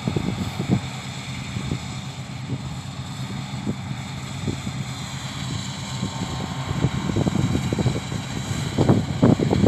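Claas Lexion 660 combine harvester running as it harvests, a steady engine drone with a faint high whine from the machinery. Wind buffets the microphone in gusts near the end, louder than the machine.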